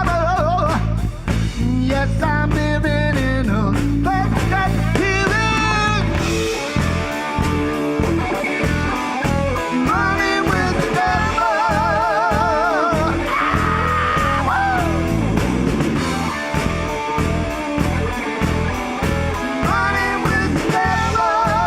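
Live rock band playing: wavering, bending lead lines over a held low chord, then about six seconds in the bass and drums break into a driving rhythm.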